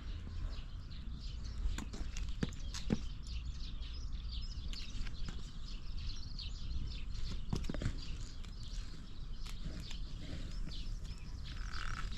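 Suzuki RGV250Γ SP's two-stroke 90° V-twin idling through Sugaya street expansion chambers: a steady low rumble with irregular popping and clicking.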